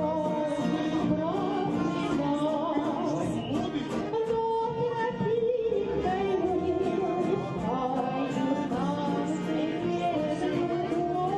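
Music with a melodic, singing-like voice over instruments, without pause.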